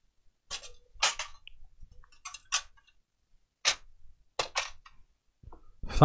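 PlayStation 4 motherboard being handled and set back into its case: a string of about ten sharp clicks and clacks at uneven intervals.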